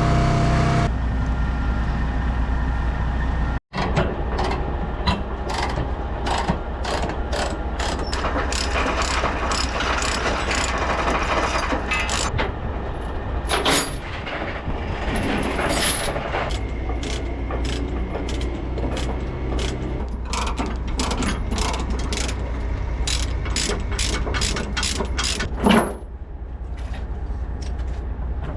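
Ratchet-type chain binders being worked on a lowboy trailer's load chains, giving long runs of rapid ratcheting clicks over a steady low engine hum, with one heavier knock near the end.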